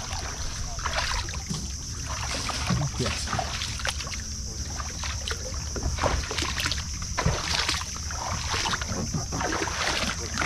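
Water splashing and lapping irregularly against a boat hull over a steady low rumble.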